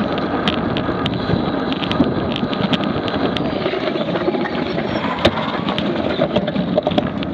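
Wind buffeting a bicycle-mounted action camera's microphone over the rolling noise of a racing pack of road bicycles, with frequent sharp clicks and one louder click about five seconds in.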